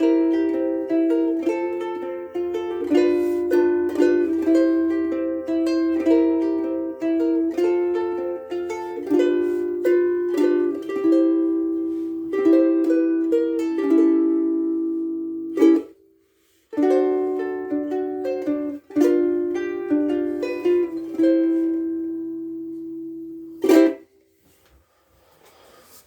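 Soprano ukulele played unaccompanied, chords and melody notes in a steady run. It stops briefly about sixteen seconds in, resumes, and ends with a sharp final stroke near the end.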